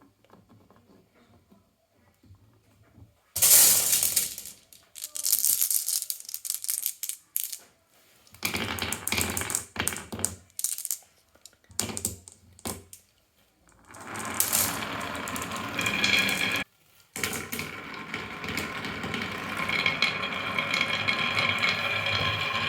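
Marbles rolling and clattering down a wooden marble-run track: faint clicks at first, then loud rattling bursts with short pauses, and from about two-thirds in a steadier continuous rolling rattle with a light ringing.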